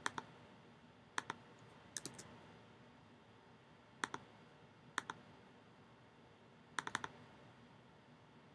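Faint computer mouse and keyboard clicks: six short bursts of one to four clicks, mostly quick pairs, spaced about a second apart, with a tight cluster of three or four near the end.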